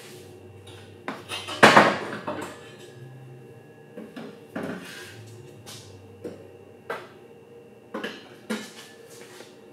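A Nissan 350Z's metal exhaust pipe clanking and knocking as it is worked off its hangers and lowered from under the car. There is a loud clatter about two seconds in, then a string of lighter knocks.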